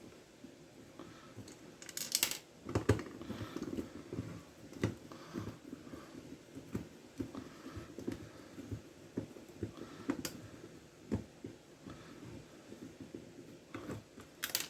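Hand screwdriver working screws out of a small plastic massager housing, with the housing handled: irregular clicks, knocks and short scrapes of plastic and metal, a cluster of louder ones about two to three seconds in.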